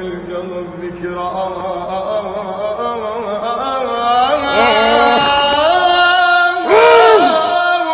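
A young man singing unaccompanied in Iraqi style, in slow drawn-out notes that grow stronger, rising to a loud sustained note near the end.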